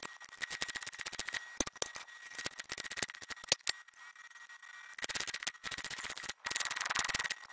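Stick (arc) welding on square steel tubing: the arc crackles and spits as tack welds are laid on the frame's corners. The crackle stops for about a second in the middle, then starts again for two more short tacks.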